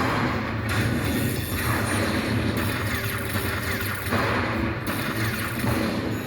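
Lightning Link pokie machine playing its bonus-round sounds, a burst of bright electronic spin noise about every two seconds over the venue's steady low hum.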